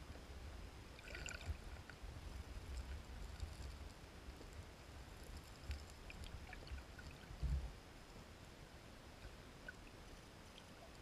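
Faint underwater sound of spawning sockeye salmon over gravel: a low rumble of moving water with scattered small clicks of stones knocking together as the fish stir the stream bed, and one dull thump about seven and a half seconds in.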